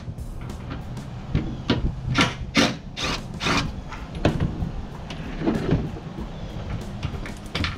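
Plastic interior trim and carpet in a car being worked loose by hand: irregular clicks, knocks and rubbing as clips and panels are pried and pulled, with a quick cluster of sharp knocks a couple of seconds in.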